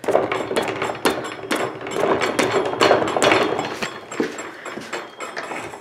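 Go-kart rear axle, with its chain sprocket, brake drum and wheel, spun fast by hand and whirring with rapid clicking. It dies down over the last couple of seconds as the drum brake is pulled and brings it to a stop.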